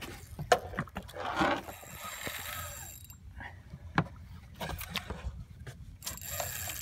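Scattered knocks and bumps on a fibreglass boat's deck and gunwale as people move about during the fight with the fish, with a short rustle of handling noise.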